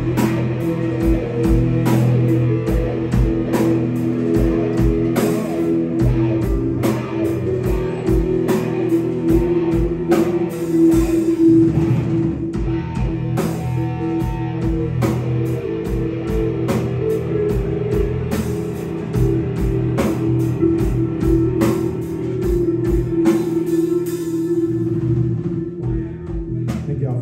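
Live rock band playing an instrumental passage: electric guitar over bass and drum kit, with a steady kick-drum beat. The cymbals drop out near the end.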